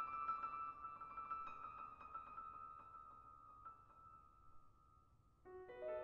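Grand piano playing softly: high notes ring on and die away over about five seconds. Then a soft new run of rising notes begins about five and a half seconds in.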